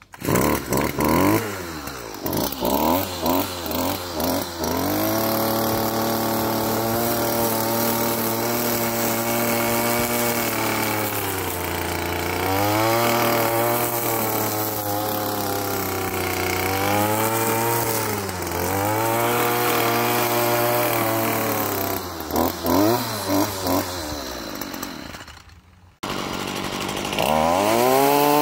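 Stihl FS38 string trimmer's small two-stroke engine running under the throttle. It revs unevenly for the first few seconds, then holds high revs, dropping back and revving up again several times. Near the end it drops out briefly, then revs up once more.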